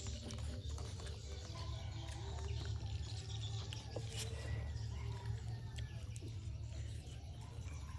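Faint, short, high-pitched animal calls over a steady low hum, with a few soft clicks near the middle.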